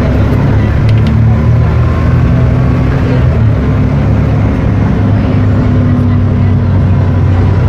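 Volkswagen/MAN 18-280 OT bus's diesel engine running steadily, its pitch holding level with no clear revving.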